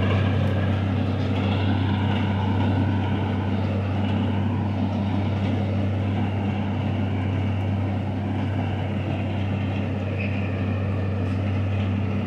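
International Harvester 756 tractor engine running steadily under load while pulling an oat-cutting machine, a constant low hum that fades slightly as the tractor moves away.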